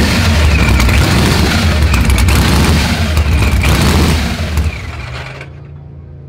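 Supercharged V8 of a burnout truck held at high revs, running loud and crackling for about five seconds, then dropping sharply back to a steady idle near the end.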